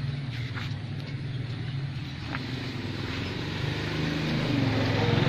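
An engine running steadily off to the side, a low hum that grows louder after about four seconds.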